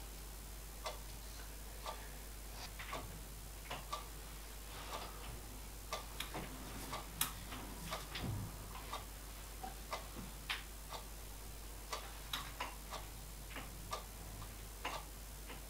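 Light, irregular metallic clicks and taps from hand work at a metal lathe while a workpiece in the chuck is dialled in against a dial test indicator, scattered every half second to a second, over a faint steady hum.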